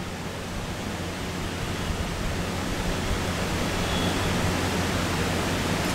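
Steady hiss over a low hum, with no distinct event; the hand instrument pressing cement into the tooth makes no sound that stands out.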